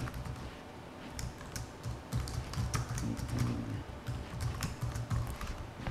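Typing on a computer keyboard: irregular runs of keystroke clicks with short pauses between them.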